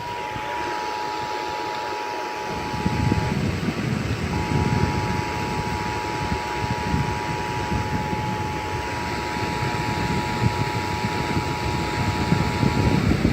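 Emergency Alert System attention signal: two steady tones of about 853 and 960 Hz sounding together. It breaks off about three seconds in, resumes a second later and holds until just before the end, over a loud, rough, rumbling background noise.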